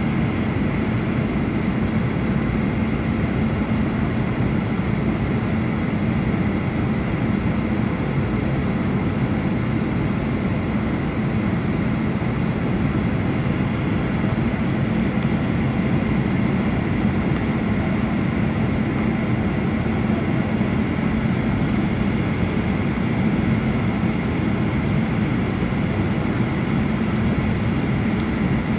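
Steady cabin noise inside a flydubai Boeing 737 on approach: the constant roar of the jet engines and rushing air, with a low steady hum and a fainter high whine running through it.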